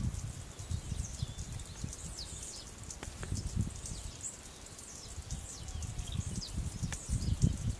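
Open-field ambience: a low, uneven rumble on the microphone with faint, scattered short high-pitched chirps and a few small clicks.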